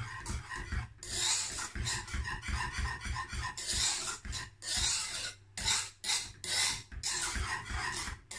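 Wire whisk scraping and stirring around a nonstick saucepan of hot, thickening matcha milk custard, a rasping sound that comes in strokes broken by short pauses, with low knocks of the whisk against the pan. The custard is being cooked until it is thick enough to cling to the whisk.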